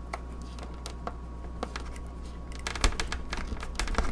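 Small plastic clicks and rustling as servo lead connectors are handled and pushed onto the pins of an RC receiver: a few scattered clicks at first, then a quick flurry of them from about three seconds in, with one sharper click.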